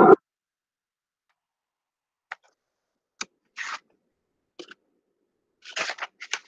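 A brief loud bump at the very start, then scattered small clicks and knocks, as of things being handled at a desk. They come through a video-call microphone that cuts to dead silence between them.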